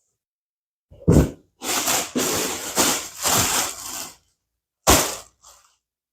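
Plastic packaging crinkling and rustling as it is handled and pulled open, in a short crackle about a second in, a longer stretch of crinkling, and one more short crackle near the end.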